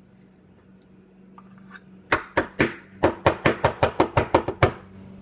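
A series of sharp knocks of a kitchen utensil against a hard dish, the kind made by rapping a spoon to get peanut butter off it while measuring. Three spaced knocks come first, then about nine quick ones at some six a second, stopping shortly before the end.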